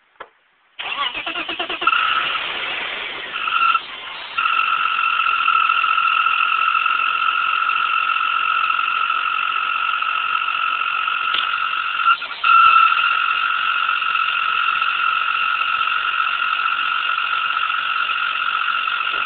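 The 'weird noise' of a 1995 BMW 325is, cause undiagnosed: a rapid pulsing for about a second, then a steady high-pitched whine that drops out briefly twice.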